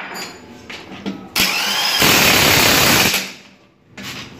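Impact wrench running in one loud burst of about two seconds, starting just over a second in after a brief blip, as it tightens the wheel nuts of a tractor tyre.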